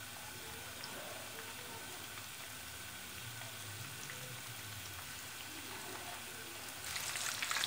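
Breaded chicken fingers deep-frying in hot oil in a pan over a low flame, a faint steady sizzle. Near the end the sizzle turns louder and crackly as a spatula turns the fingers in the oil.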